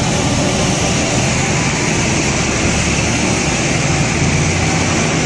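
Tractor-trailer's diesel engine running steadily, heard from inside the cab: a low, even hum under loud wind and road noise.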